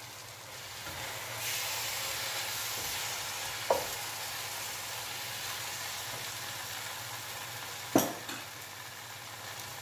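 Grated beets, carrots and onion frying in oil with tomato paste just stirred in, a steady sizzle as a wooden spoon turns them in the pot. The spoon knocks against the pot twice, the second knock the louder.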